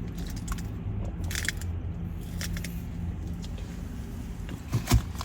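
Close-up eating sounds: scattered short bites, crunches and chewing noises, with a sharper knock near the end, over a steady low hum.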